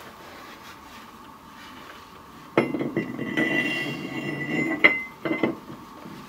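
Ford 8.8 steel ring gear clanking onto the differential carrier as it is fitted over the case. It rings for about two seconds, then clinks twice more as it is shifted into place.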